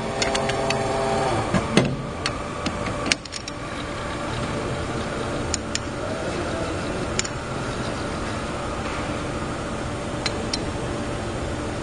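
Hydraulic test bench for an HKU50 steering unit running with a steady machine noise. A whining tone stops about a second and a half in. Scattered sharp metallic clicks and ticks sound over it, the loudest about three seconds in.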